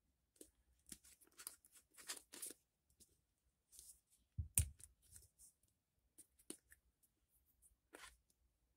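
Faint scattered tabletop handling noises: light clicks and rustles, with a heavier knock about four and a half seconds in and another sharp tap near the end.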